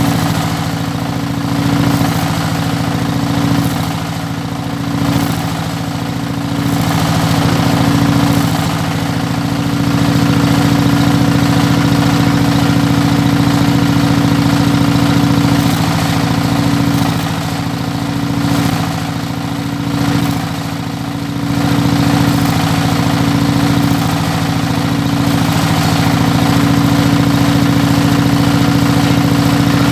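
Stick welding on a steel plate: the electric arc crackles steadily, stopping briefly a few times, over a loud, steady engine hum.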